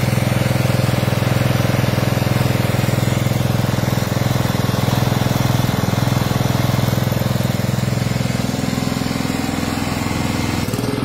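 Honda four-stroke petrol engine running steadily, driving a belt-driven Aspee HTP high-pressure sprayer pump. Its note shifts slightly about three-quarters of the way through.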